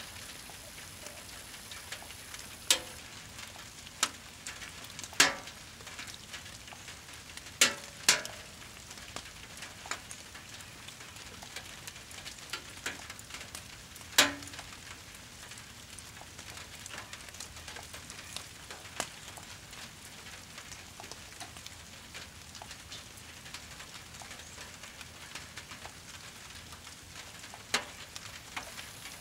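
Brush-pile fire crackling, with about seven sharp, loud pops of burning wood scattered through and many small ticks, over a steady hiss of rain.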